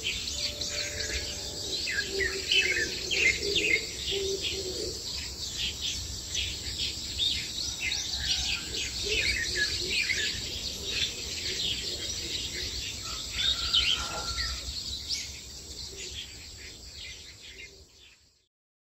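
A dawn chorus of many birds chirping and singing at once, with a few lower call notes among the quick high chirps, fading out near the end.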